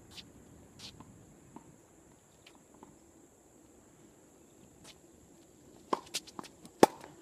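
Tennis point being played on a hard court: a few faint shoe scuffs, then about six seconds in a quick run of sharp pops of the ball struck by racquets and bouncing, the loudest near the end. A faint steady high insect drone runs underneath.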